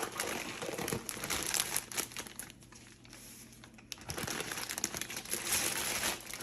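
Plastic packaging crinkling and rustling as it is handled, with a short lull about two and a half seconds in before the crinkling picks up again.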